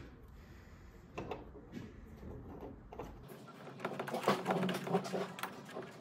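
Small clicks and scraping as hands twist and handle the brass caps on an air handler's quick-connect refrigerant fittings, with sleeve rustle. The handling gets busier from about three seconds in.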